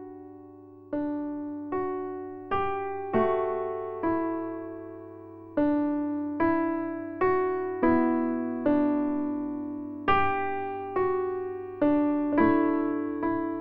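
Background music: a slow piano melody, single notes struck one after another about once or twice a second, each ringing and fading away.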